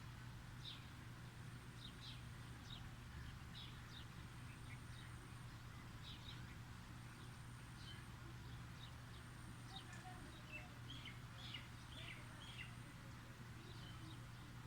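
Faint bird chirping: many short, high chirps scattered throughout, over a steady low hum.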